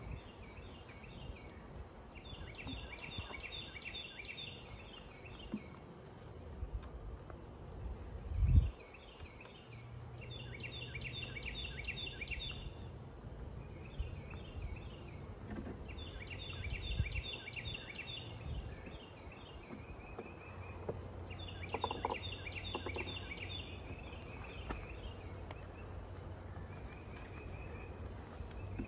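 A songbird singing short phrases of rapid repeated notes, one phrase every few seconds, over a steady low rumble. One louder low thump comes about eight seconds in.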